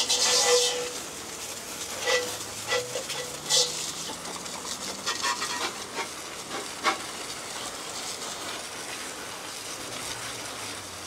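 Water spraying from a garden hose onto a motorcycle to rinse off soap: a steady hissing spray with scattered splatters as the stream strikes the bike, loudest in the first second.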